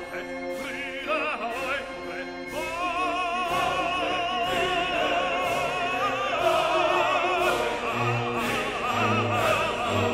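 Background music: operatic singing with vibrato over an orchestra, with a steady beat.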